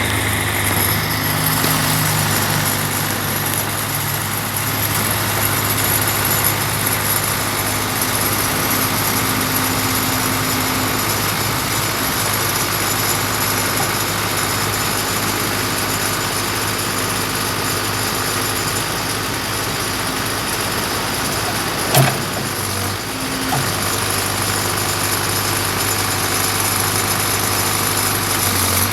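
Case 580C backhoe's engine idling steadily, with one sharp click or knock about two-thirds of the way through.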